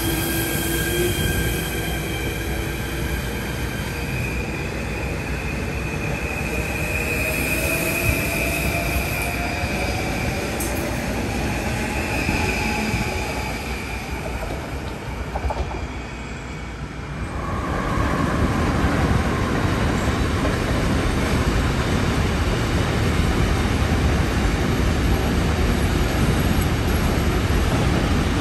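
NS Sprinter electric train pulling out, its traction drive whining with a tone that slowly rises in pitch as it gathers speed and fades away. About eighteen seconds in, a container freight train starts rolling past close by, a loud steady noise of wheels on rails, with a brief squeal as it arrives.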